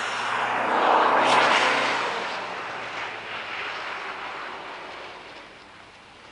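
A car driving past over snow and ice: engine and tyre noise swell to their loudest about a second in, then fade steadily as it drives away.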